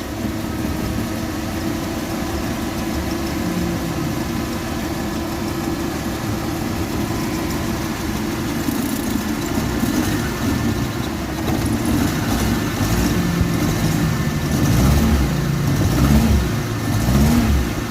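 Suzuki F10A four-cylinder engine of an old van idling roughly and misfiring. The owner blames worn spark plugs for the misfire.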